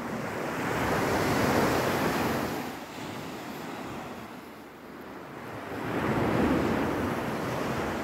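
Sea waves breaking and washing up the sand, in two surges about five seconds apart: one peaking about a second and a half in, the other about six seconds in.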